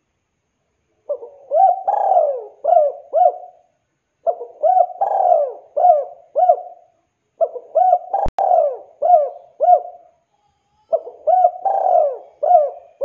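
Spotted dove (tekukur) cooing: four repeated phrases of several short, arching coos each, with pauses between phrases. A single sharp click sounds in the third phrase.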